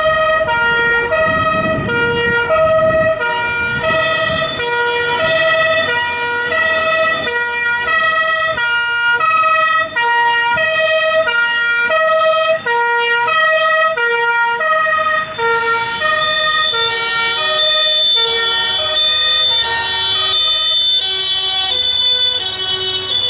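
German two-tone emergency-vehicle sirens (Martinshorn) on a fire engine and a THW rescue truck pulling up, sounding a steady high-low alternation. A second two-tone siren overlaps out of step in the second half.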